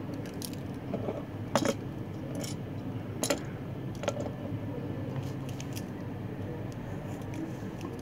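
Handling sounds at a soldering bench: a few sharp clicks and taps as the XLR connector in its helping-hands clamp and the solder wire are moved. The loudest come about one and a half and three seconds in, over a steady low hum.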